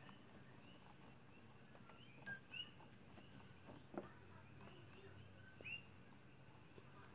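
Near silence with faint, short chirping calls every second or two, like a small bird or other animal calling, and a few soft taps, the clearest about four seconds in.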